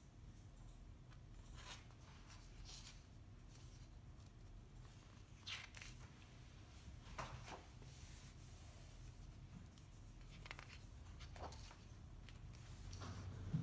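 Faint rustling of paper pages as a large printed book is leafed through by hand, with a few page turns and soft brushes of fingers on the paper over a low room hum.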